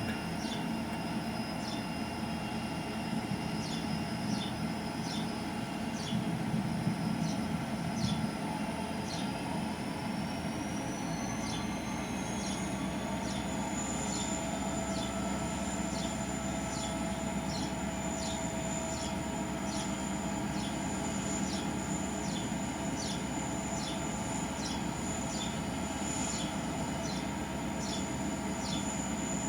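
Train running by with a steady rumble and no horn. Over it come a faint, regular high ticking a little more than once a second and a thin high whine that climbs in pitch about ten seconds in, then holds.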